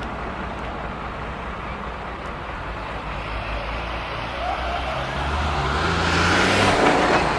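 Street traffic running steadily, with a motor vehicle's engine growing louder as it passes close over the last couple of seconds.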